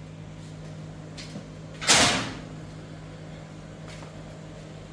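A microwave oven door shut with a single sharp thump about two seconds in, with a few faint clicks around it, over a steady low hum.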